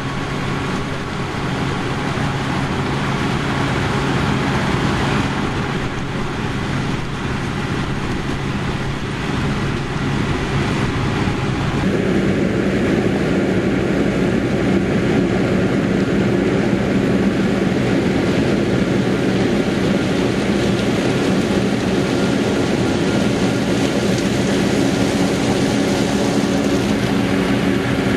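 Heavy diesel farm machinery running steadily at harvest work. About twelve seconds in, the sound changes suddenly to a louder, higher-pitched engine note.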